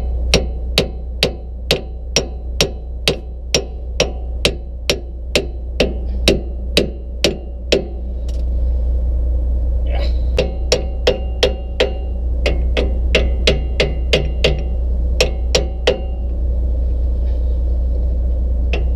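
Hammer blows on the steel U-joint and yoke of a diesel pusher motorhome's driveshaft, knocking the joint loose to drop the driveline before towing. The blows come steadily, about two a second, each with a short metallic ring, with a pause of a couple of seconds partway through before they start again.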